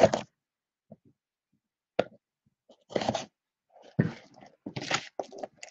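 Plastic shrink wrap on a sealed trading-card box being sliced with a blade and torn off: scattered crinkles and crackles, with a sharp click about two seconds in and denser crinkling from about three seconds on.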